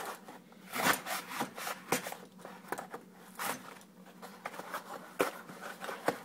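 A blade sawing and scraping through an egg carton to cut out a single cup: irregular rasping strokes with small clicks as the material gives.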